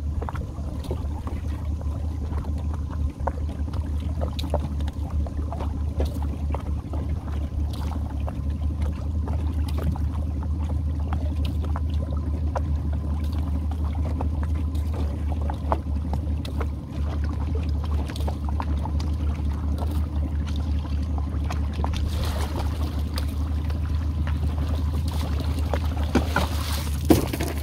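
Boat motor running steadily at low speed, a constant low hum, as the boat creeps along a crab trotline. Light ticks over it, and a louder hiss joins in for the last few seconds.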